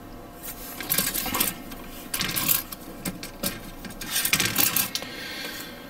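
Plastic model-kit runners (sprues) clicking and clattering against each other as they are picked up and moved about by hand, in several short bursts.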